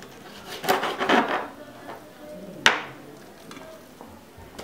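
Kitchen knife cutting beef rib meat on a plastic cutting board: a short run of cutting and scraping sounds about a second in, then one sharp knock of the blade against the board a little under three seconds in.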